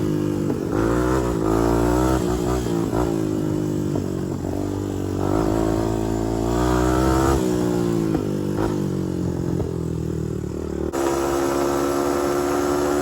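Honda TRX250X ATV's single-cylinder four-stroke engine accelerating hard under way: the pitch climbs and drops several times as it shifts up through the gears, then it holds a steadier high note near the end as it reaches its top speed against the rev limiter. Wind rumbles on the microphone for the first part.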